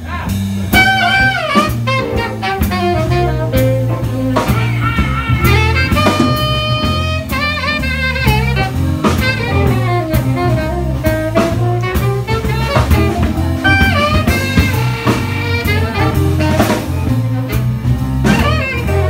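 Live jazz-blues band playing: a saxophone carries a wandering melodic line, holding one long note about six seconds in, over bass, electric guitar and drum kit.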